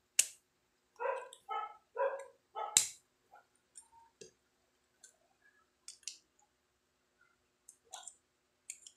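Hard plastic parts of a Beyblade Burst top (layer, chassis and driver) clicking and scraping as they are fitted and twisted together, with scattered sharp clicks, the loudest about three seconds in.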